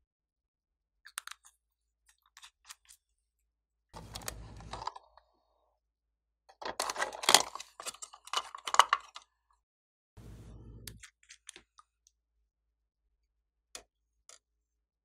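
Hard plastic toy shell being handled and pried apart, giving a burst of loud clattering plastic clicks and knocks over about three seconds. Fainter handling thumps come before and after, and a few light ticks and taps come early and near the end.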